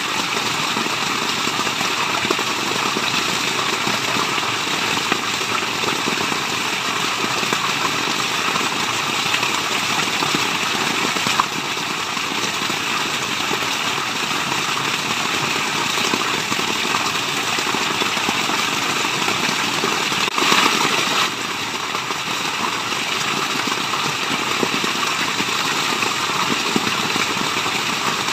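Rushing water running steadily, a continuous even hiss with no change in rhythm, briefly louder for about a second some twenty seconds in.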